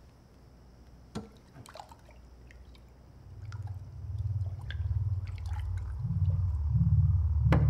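A man gulping water from a glass jug, with small liquid sounds, then a sharp knock near the end as the jug is set down on a bedside table. A low, pulsing rumbling drone swells in from about three seconds in and grows louder.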